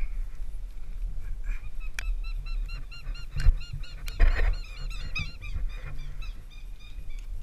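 A bird calling in a rapid run of short, repeated, honking notes, several a second, which stops near the end. Over it come a few sharp knocks and a rustle as the climbing gear and rope strike the aspen trunk, the loudest about halfway through.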